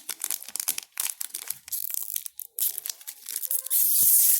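Foil trading-card booster pack wrapper crinkling and tearing as it is opened by hand: a rapid run of sharp crackles that grows denser and louder near the end.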